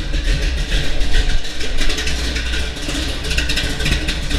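Chevrolet C10 pickup's engine running just after being started, the loud exhaust pulsing unevenly with a wavering level.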